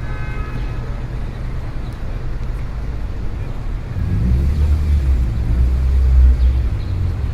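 City street traffic: a steady hum of traffic, with a vehicle passing close from about four seconds in, its deep rumble peaking near six seconds and then easing off.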